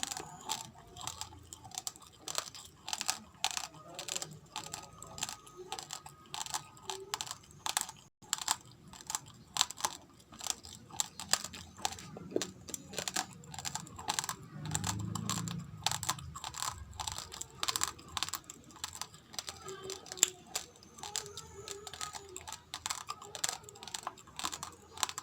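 Raw rice grains crunched between the teeth, close to the microphone: a rapid, irregular run of sharp cracks.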